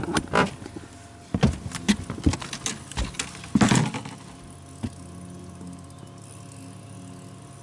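Irregular knocks and clatters as a long-handled landing net is grabbed and handled on a boat deck, loudest just before the middle, then a faint steady hum.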